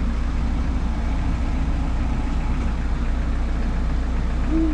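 A vehicle engine running steadily with an even low rumble.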